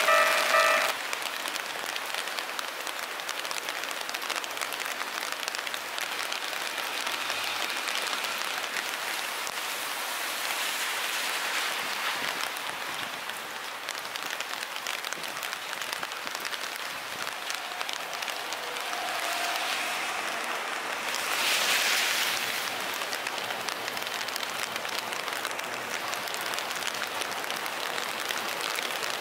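Heavy rain falling in a steady hiss, with a louder swell lasting a couple of seconds about three quarters of the way through.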